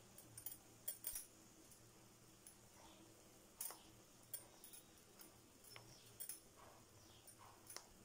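Near silence: faint room tone with a dozen or so short, scattered clicks and ticks, the strongest about a second in and again a little past three and a half seconds.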